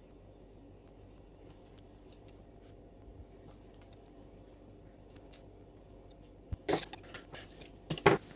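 Faint small clicks and taps as sweets are picked up off a cutting board, then a few louder brushing scrapes of a hand across the board near the end.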